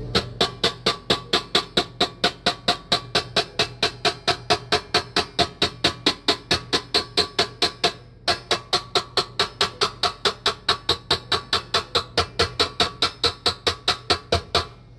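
A fast, even percussive beat like a wood block, about four to five short ringing strokes a second, with a brief break about eight seconds in.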